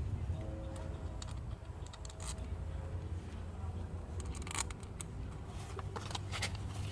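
Scattered light metallic clicks and clinks of starter-motor parts and hand tools being handled and fitted together, a few sharp ticks in the second half, over a steady low hum.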